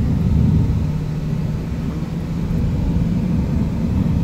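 Car engine and road noise heard from inside the cabin while driving slowly: a steady low rumble with a faint steady hum.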